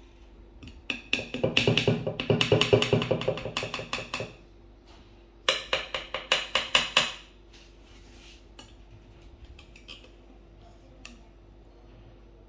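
A knife sawing through a cake, its blade clicking and scraping on a glass serving plate in quick repeated strokes. There are two runs of a few seconds each, the first about a second in and the second around the middle, with a few faint ticks after.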